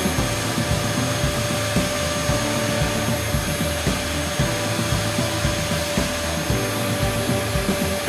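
Vacmaster wet/dry shampoo vac's two-stage motor running in vacuum mode, pulling shampoo back out of the carpet through the floor tool: a steady rushing suction with a constant whine.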